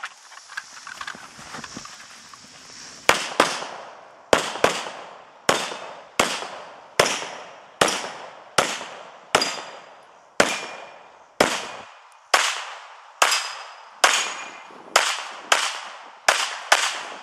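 Heckler & Koch P30L pistol firing about thirty shots in rapid succession, mostly in quick pairs a fraction of a second apart, beginning about three seconds in. Each report rings out briefly before the next.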